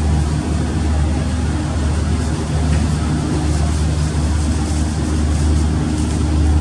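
KM Glory Mary passenger ship's engines running with a steady low drone, under a constant rushing noise of wind and sea.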